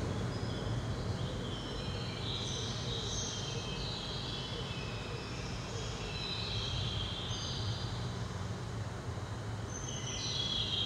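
A steady low hum under clusters of high, shimmering tones that jump from pitch to pitch every second or so, with a denser cluster near the end.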